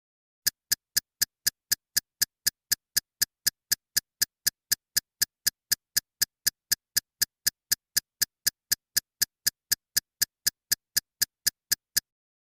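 Clock-like ticking sound effect: sharp, evenly spaced ticks, about four a second, that start about half a second in and stop suddenly near the end, with dead silence between them.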